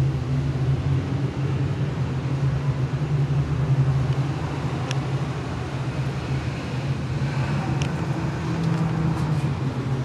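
A steady low hum of a running motor, with two faint short clicks about five and eight seconds in.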